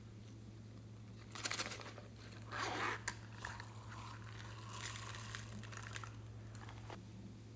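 A silicone zippered pencil case being handled and opened, with a short scratchy zip and a sharp click about three seconds in, then a faint crackly patter as small sequins and beads are shaken out of it onto slime. A steady low hum sits underneath.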